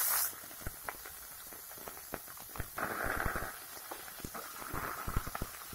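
A flat metal spatula scraping and knocking against a kadai while stirring boiled gular (cluster fig) pieces frying in mustard oil with onions, with a quiet sizzle beneath. A loud sizzle from the figs hitting the hot oil stops just after the start.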